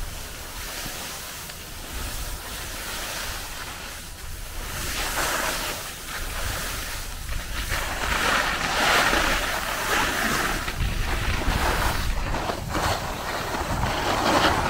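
Skis hissing and scraping over packed snow during a downhill run, with wind rumbling on the microphone. The swishing grows louder from about eight seconds in.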